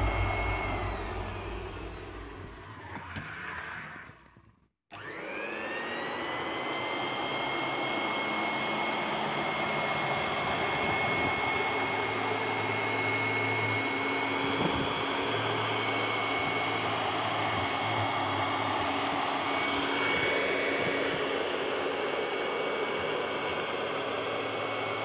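Electric round-knife cloth cutting machine starting up about five seconds in: its motor spins up quickly to a steady high whine and runs on as the blade cuts through layers of fabric. Background music fades out before it starts.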